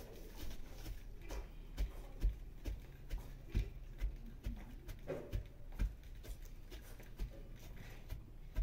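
Wooden pestle pounding in a hollowed-log wooden mortar: dull, low thuds at an uneven pace, about one or two a second.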